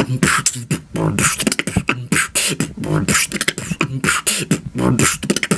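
Human beatboxing: a fast, steady beat of hissing hi-hat and snare sounds made with the mouth over short low bass hums.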